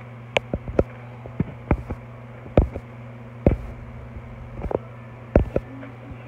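Plastic T-rex toy figure being handled, giving about ten irregular clicks and knocks as its jointed parts are moved, over a steady low hum.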